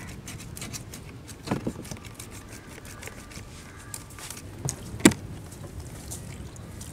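Kitchen knife cutting and scraping along a scaled fish's back as the fin spines are trimmed off, with fine ticking at first. A few sharp knocks follow, the loudest about five seconds in.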